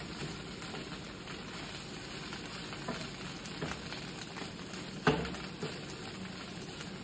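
Potatoes and eggs sizzling in a frying pan while a wooden spoon stirs them, with a few light clicks of the spoon against the pan and a louder knock about five seconds in.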